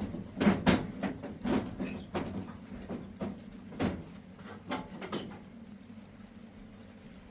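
Irregular knocks and clatters, a dozen or so sharp hits that thin out after about five seconds.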